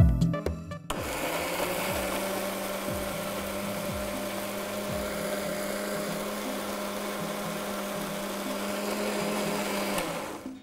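Velocity electric mixer grinder running with its small steel jar, grinding roasted spice powder and coconut, which is not yet a smooth paste. It starts about a second in, runs steadily, and switches off near the end.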